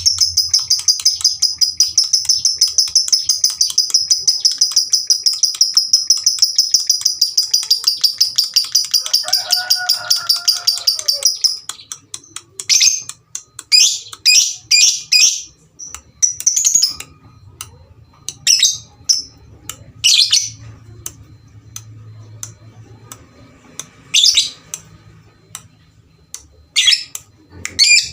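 Lovebird singing one long, unbroken, rapid high trill for about eleven and a half seconds. It then breaks off into short, sharp chirps a second or two apart.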